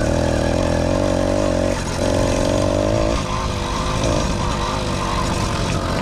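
A 100cc two-stroke motorised bicycle engine running under throttle while being ridden. Its note holds steady, dips briefly just before two seconds in, and after about three seconds drops lower and wavers as the throttle eases.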